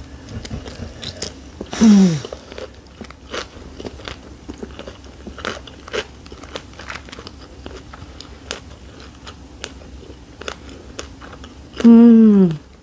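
Close-miked eating of a fresh shrimp summer roll in rice paper: biting and chewing with a light crunch of lettuce and many small wet mouth clicks. Twice, about two seconds in and again near the end, a short hummed 'mmm' falls in pitch; the second is the loudest sound.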